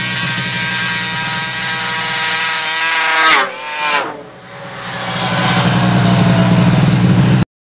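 Two high-revving two-stroke race snowmobiles, a 1998 Ski-Doo Mach 1 and a 1999 Polaris XCR 800, approach at full throttle and pass close by one after the other about three and four seconds in, each with a sudden drop in pitch. Their engine note then falls away as they speed off, and the sound cuts off abruptly near the end.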